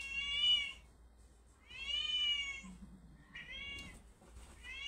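Recorded cat meows played from a mobile phone to lure a cat out. Drawn-out meows of nearly identical shape repeat about every two seconds, with a shorter meow between them.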